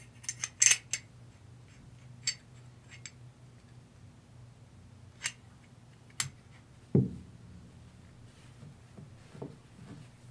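Small steel parts of an AR-15 bolt being handled and fitted together: scattered sharp metallic clicks and light clinks, several in the first second, and a duller thump about seven seconds in.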